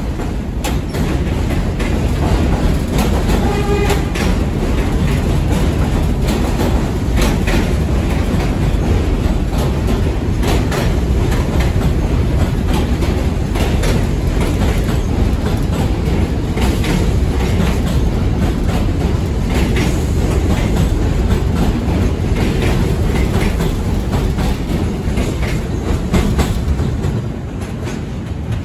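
An NYC Subway D train of R68 cars passing on elevated track without stopping: a heavy, steady wheel rumble with quick clickety-clack over the rail joints. It fades near the end as the last cars pull away.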